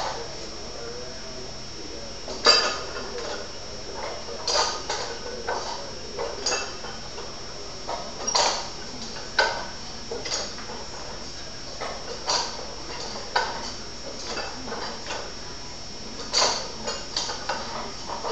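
Iron plates on a pair of plate-loaded 90 lb dumbbells clanking against the handles and collars with each rep of supinating cheat curls. The metallic clinks come every second or two, some in quick double or triple rattles.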